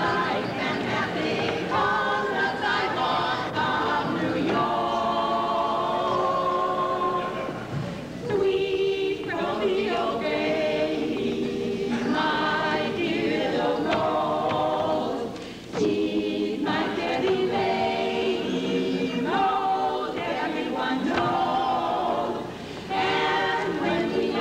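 A choir singing a song in harmony, phrase after phrase, with short breaks between phrases.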